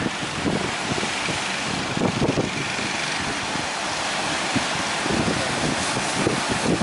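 Strong wind buffeting the microphone: a steady rushing hiss with irregular low gusty rumbles.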